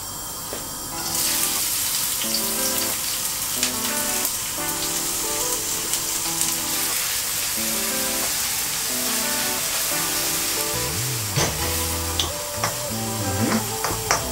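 Chopped ginger, garlic and chilli dropped into hot oil in a wok at maximum heat, setting off a sizzle that starts suddenly about a second in and keeps going as they are stirred with a wooden spoon.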